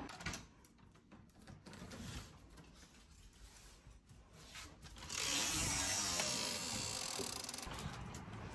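Faint handling rustles and small clicks, then about five seconds in the back door opens and a steady rush of outdoor wind noise starts suddenly and slowly fades.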